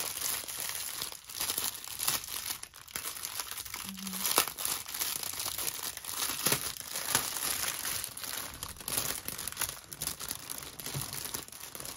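Clear plastic packaging crinkling and rustling in the hands as a bag of diamond-painting drill packets is handled and pulled open, with irregular sharp crackles throughout.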